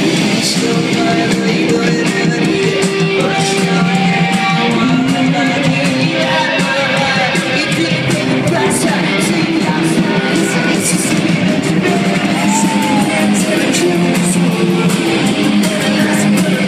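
Live rock band playing loud distorted electric guitars, with some singing or shouting, heard from within the crowd.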